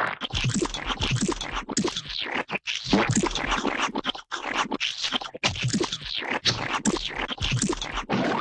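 Cartoon sound effect of rapid, irregular scratching and scraping strokes, with brief breaks between bursts.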